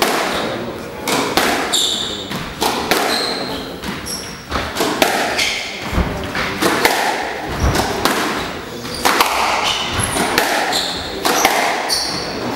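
Squash rally on a wooden court: the ball struck hard again and again by rackets and smacking the walls, with a few deep thuds, and short high squeaks of court shoes on the floor in between.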